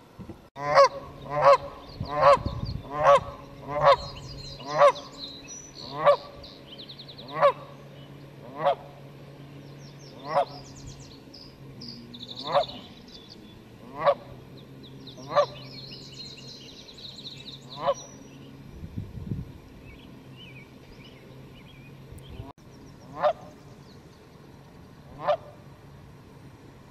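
A goose honking over and over. The honks come at more than one a second at first, then slow to one every second or two and thin out near the end.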